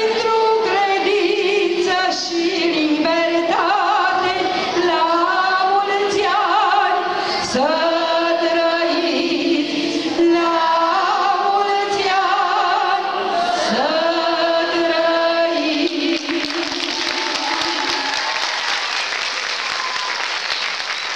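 A woman singing solo into a microphone, with long held and gliding notes, until about 16 seconds in; then the audience applauds.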